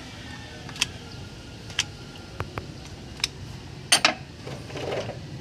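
Sharp, irregular clicks and taps of a screwdriver against a hard plastic distributor cap as the cap is handled, about half a dozen in all with the loudest pair about four seconds in, then a brief scuffing rustle near the end.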